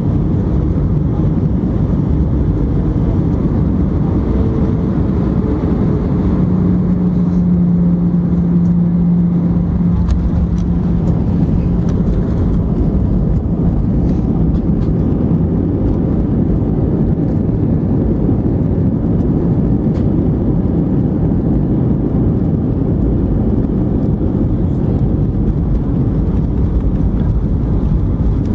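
Airbus A319 airliner in motion: a loud, steady rumble of engine and airflow noise, with a low steady hum that stands out for several seconds near the start.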